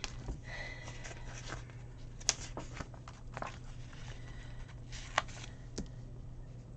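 Sticker sheets and planner paper handled, rustling, while a paper sticker is picked off and pressed onto the page, with a few sharp little clicks and taps, the loudest about two seconds in and again about five seconds in.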